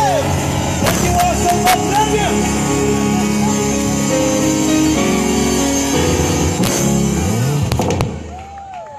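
Live gospel band music: a singer's held note slides down and ends at the start, then the band holds chords with a few drum hits. The music falls away about eight seconds in, leaving crowd voices.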